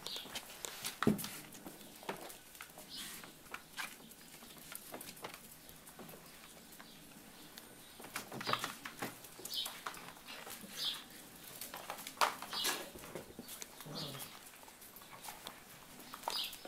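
Shelties and puppies playing: scattered patter and scrabbling of paws on brick paving, with occasional knocks, a louder one about a second in.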